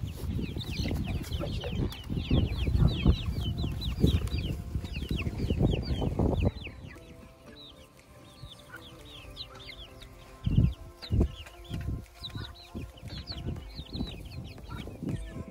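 Young chickens peeping: a steady run of short, high, falling chirps. For the first six seconds or so a low rumble of wind on the microphone runs under them, and a couple of soft thumps come later.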